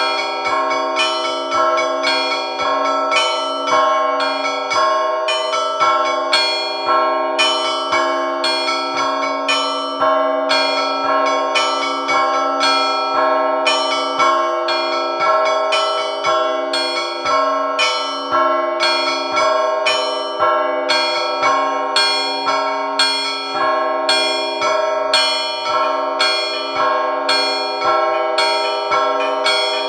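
Russian Orthodox church bells rung in a Sunday peal (zvon): several bells of different pitch struck in a quick, steady rhythm, their ringing overlapping without a break.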